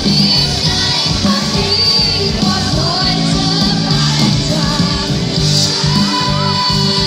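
Live band music with singing, loud and continuous.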